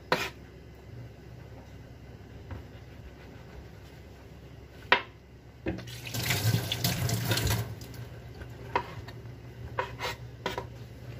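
A kitchen knife striking a cutting board in a few separate cuts. About six seconds in, a water tap runs into the sink for under two seconds.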